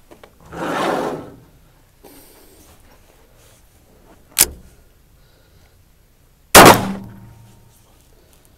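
Two gunshots about two seconds apart. The second is louder and trails off with a long echo. Before them, a second-long rushing swell comes and goes.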